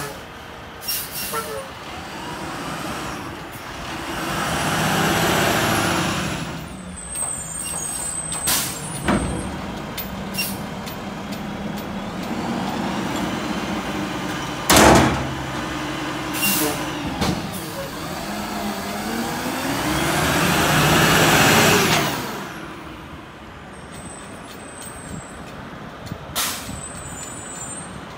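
Front-loading garbage truck fitted with a Curotto-Can: its diesel engine revs up twice for several seconds each, pitch rising and then falling, to drive the hydraulics as the can is worked. Short air-brake hisses come and go, and a single loud metal bang comes about halfway through.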